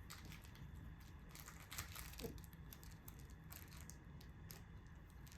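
Faint scattered crinkling rustles and light ticks, busiest in the middle, over a low steady hum.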